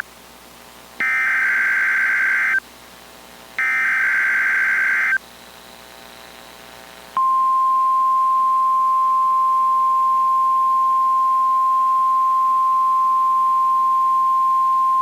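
NOAA Weather Radio alert signal: two harsh warbling bursts of SAME digital header data, each about a second and a half long and a second apart, then about seven seconds in the steady single-pitch 1050 Hz warning alarm tone starts and holds, announcing an alert message (here a Tornado Watch update).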